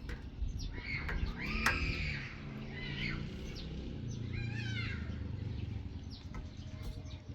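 Birds chirping in short, high calls a few times over a steady low background rumble.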